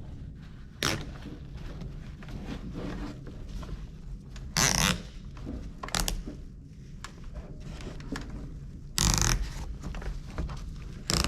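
Plastic gutter-kit sleeve adapter being worked onto the leaf-vacuum tube by hand for a snug fit: about five short scrapes and knocks, the two loudest and longest about halfway through and again near the end.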